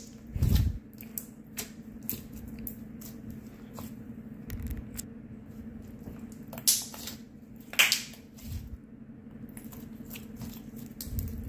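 Clear Elmer's glue slime with confetti sprinkles squeezed and kneaded by hand: irregular sticky squishes and crackling clicks, with a dull squelch about half a second in and two sharp pops a little after the middle. A steady low hum runs underneath.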